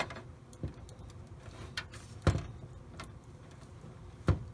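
Short plastic clicks and knocks of a front-panel cable connector being fitted onto motherboard header pins inside a computer case, with two sharper knocks about two seconds in and near the end.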